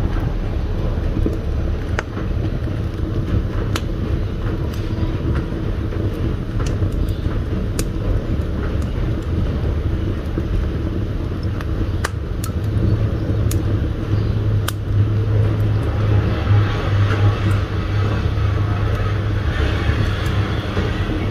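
Wood fire burning in the firebox of a brick wood-burning stove: a steady low roar with sharp crackles and pops every second or two. The roar swells for a few seconds past the middle.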